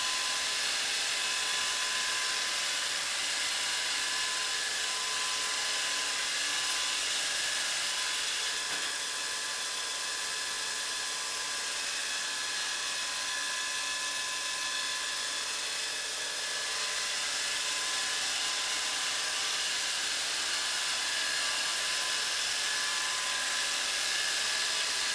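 Samsung Tango robot vacuum cleaner running: a steady high motor whine with a hiss of suction, briefly a little quieter about halfway through.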